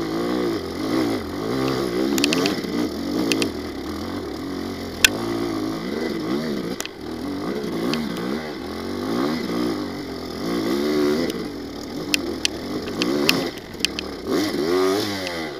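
Off-road motorcycle engine revving up and down again and again as the throttle is worked, with scattered sharp ticks and knocks.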